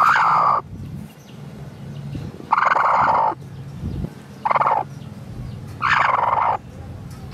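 A broody hen sitting on her eggs gives a series of short calls, about one every second and a half.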